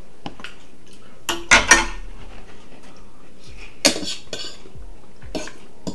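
Forks clinking and scraping against ceramic bowls during a meal, with a few sharp clinks; the loudest comes about a second and a half in.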